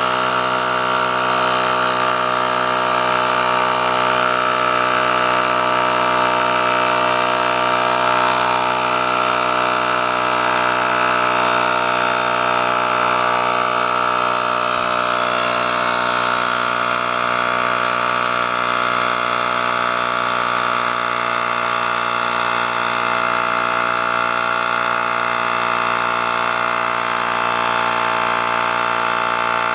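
Cordless portable tyre inflator's small air compressor running steadily, a constant mechanical hum.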